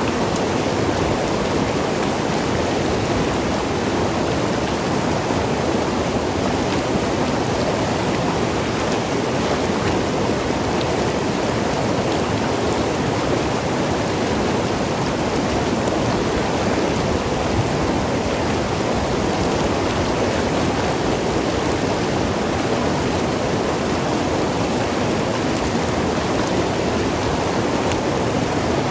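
Mountain river flowing and gurgling over rocks, a steady, unbroken sound.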